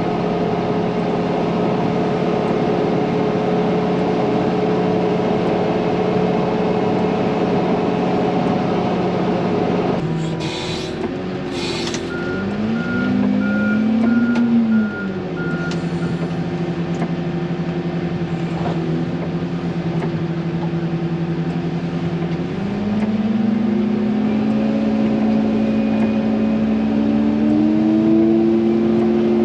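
Heavy diesel engine of a wheel loader running under load, its pitch dipping and rising about halfway through while a backup alarm beeps in an even run. Near the end the engine revs up and its pitch climbs steadily.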